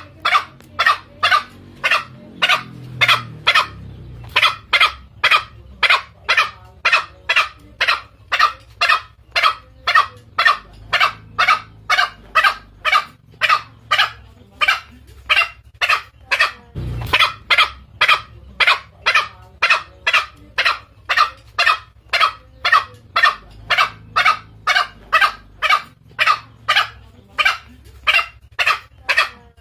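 Green junglefowl call played as a hunting lure to draw in males: short, sharp calls repeated steadily about twice a second. One low thump comes about halfway through.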